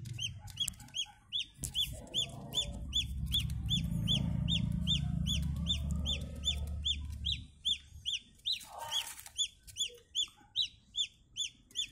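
Indian peafowl chicks peeping: a steady series of short, high calls, about three a second. Underneath, a low rumble runs for a few seconds in the first half, and there is a brief rustle about nine seconds in.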